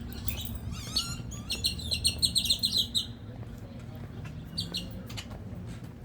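Small birds calling in trees: a quick run of high chirps, about seven a second, begins about a second and a half in and lasts about a second and a half, with a couple of shorter chirps before it and again near the end.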